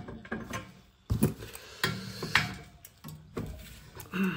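A few separate sharp knocks and clunks of metal being handled as an old, drained-down chrome towel radiator is undone from its valve union and taken off.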